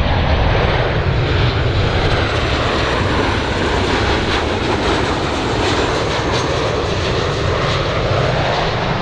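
Boeing 737-800 business jet's twin CFM56-7B turbofans running at approach power as the airliner passes low on final with its gear down: a steady deep rumble under a broad jet hiss, with a faint high whine early on.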